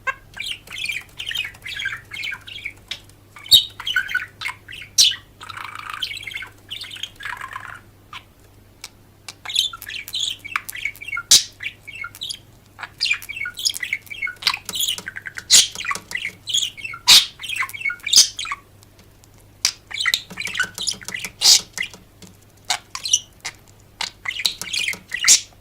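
Birds chirping and squawking in rapid clusters of short calls, broken by brief pauses.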